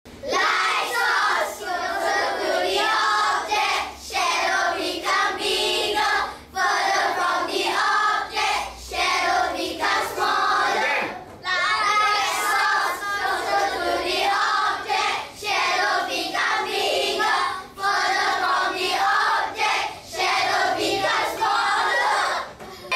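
A class of young schoolchildren singing together in unison, in short phrases with brief breaks between them. The song's words are 'light source closer to the object, shadow becomes bigger; further from the object, shadow becomes smaller'.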